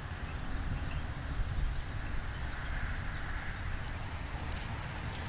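Outdoor ambience: a steady low rumble with birds chirping faintly in the background.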